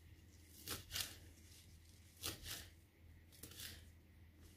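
Kitchen knife chopping a pile of fresh mint leaves on a paper-towel-covered cutting board: three pairs of soft, crisp cuts.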